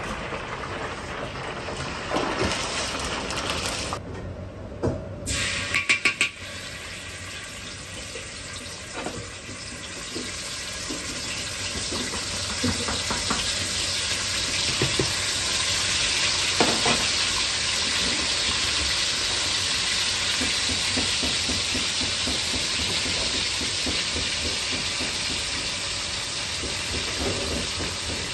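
Hot oil sizzling in a wok as doubanjiang (Sichuan chili bean paste) fries in it, the hiss growing louder about halfway through, with a few sharp metal clinks along the way.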